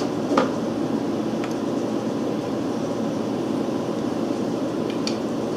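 Steady low rushing background noise with no change in level, and a few faint light clicks, about three in all, as small breaker-point parts are handled on the engine's ignition plate.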